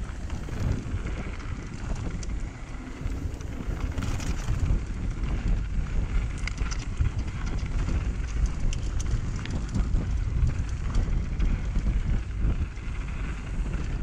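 Wind buffeting the microphone of a camera on a mountain bike, with a steady low rumble. Tyres run over loose rock and the bike rattles, giving scattered sharp clicks throughout.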